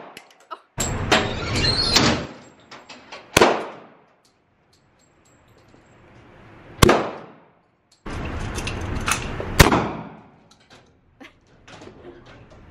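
Gunshots fired one at a time from a handgun at an indoor shooting range: about four sharp cracks spaced a second or more apart, each followed by a short echo off the range walls.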